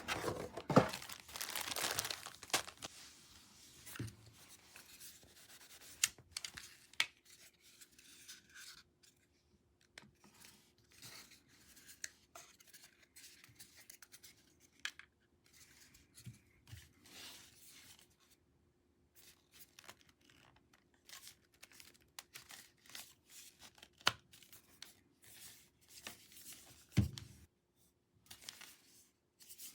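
Packaging being handled: crinkling and rustling with scattered small clicks, densest in the first few seconds and sparse after that, with a soft low thump near the end.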